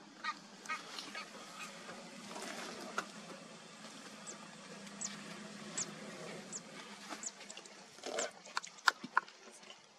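Wild birds calling: a run of short, high, falling chirps about once a second, and a louder flurry of sharp calls and clicks near the end.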